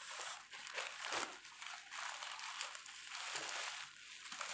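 Plastic courier bag and bubble wrap rustling and crinkling in irregular swells as a parcel is unwrapped by hand.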